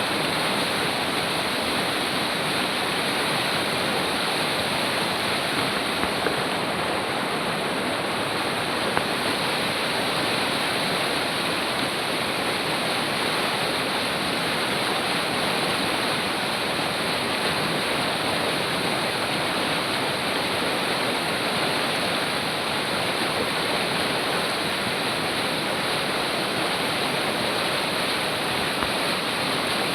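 Fast river water rushing steadily over rocks: a dense, even roar of flowing water with no break.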